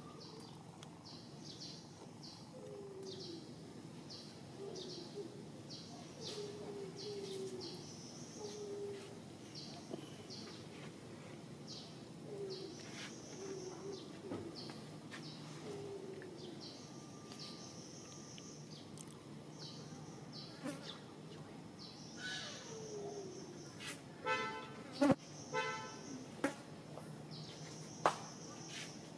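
Outdoor animal calls: a high chirping repeats every half second or so throughout, with lower falling calls in the first half. A few loud, harsh calls come near the end.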